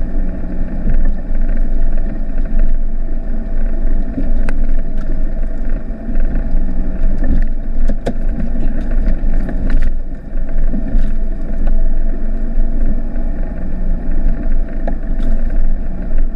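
Mitsubishi Delica's 2.8-litre turbo-diesel engine running steadily, heard from inside the cab while driving over a rough dirt track, with a few sharp knocks and rattles from the body and suspension over the bumps.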